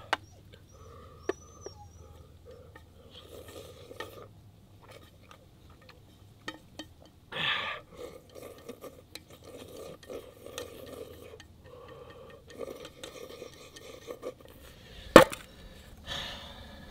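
Chapaguri noodles being eaten from a bowl: utensils click and scrape against the dish again and again, with a short louder burst about halfway through and one sharp loud knock near the end.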